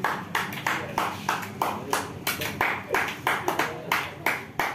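A small group of people clapping together in a steady rhythm, about three claps a second.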